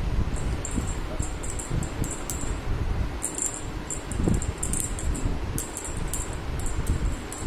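A small jingle bell tinkling in quick, irregular shakes, over low rustling and handling noise.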